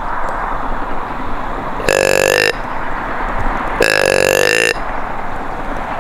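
Two short buck grunts blown on a whitetail deer grunt call, about two seconds apart, the second a little longer: calling to draw a buck in.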